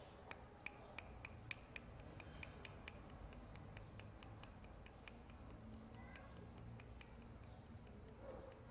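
Faint clicking of a red-footed tortoise's claws and feet on a ceramic tile floor as it walks, several sharp ticks a second, growing sparser after the first few seconds.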